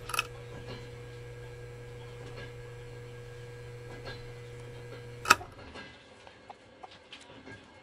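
A steady low hum with a fainter higher tone. It starts with a couple of sharp clicks and cuts off with a loud click about five seconds in, followed by a few faint ticks.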